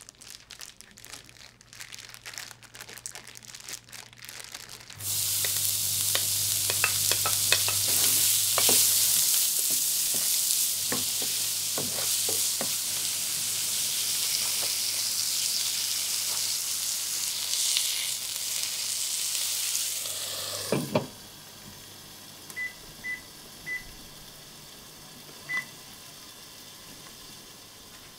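A plastic bag crinkling as chicken is kneaded with seasoning inside it. About five seconds in, chicken pieces and chopped onion start sizzling loudly in a frying pan. The sizzling stops with a clatter about 21 seconds in, and a few short beeps follow.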